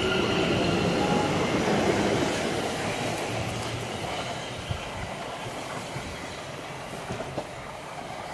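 London Overground electric multiple unit running away along the track, its rumble and wheel-on-rail noise fading steadily as it recedes, with a few short clicks from the wheels near the end.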